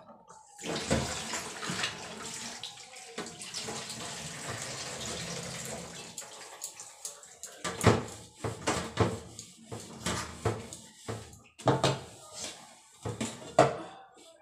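Tap water running over dishes being rinsed, steady for the first several seconds; then stainless steel plates and utensils clanking and clattering as they are handled and stacked, with a few loud knocks near the end.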